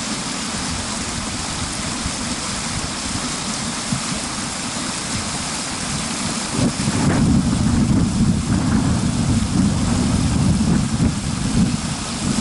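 Motorboat under way on a river: an outboard engine runs steadily under a rush of wind and water. The engine's low drone grows louder about seven seconds in.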